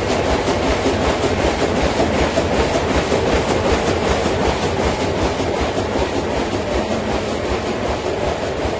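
Corrugated-box flexo printer slotter rotary die-cutter with stacker running in production, a loud steady mechanical clatter with a regular rhythm.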